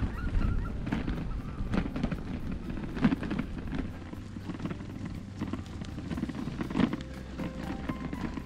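Bicycle jolting over a rough, rutted dirt track: a run of short knocks and rattles over a low wind rumble on the bike-mounted camera's microphone. Near the end a few steady musical tones come in.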